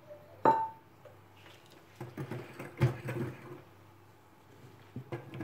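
A single sharp clink with a brief ring, then a scatter of lighter knocks and clatters about two seconds in: a hand mixer's metal beaters knocking against a glass mixing bowl as it is handled. The mixer motor is off.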